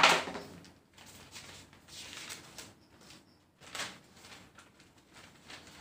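A few faint, brief rustling and scraping noises, with a short one about two seconds in and another near four seconds, against a quiet room.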